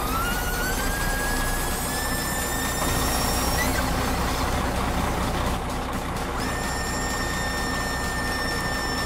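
Small electric motor of a 1:16-scale RC dump truck's tipping mechanism whining as it raises the loaded bed. The whine rises in pitch and then holds steady, stops about three and a half seconds in, and starts again steady about six seconds in, over a low steady hum.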